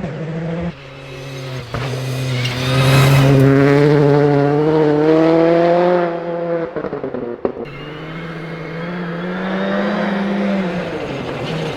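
Rally car engine on a snow stage, pulling hard with its pitch rising to its loudest a few seconds in, then lifting off suddenly with a short burst of crackles and pops, before accelerating again with the pitch climbing once more.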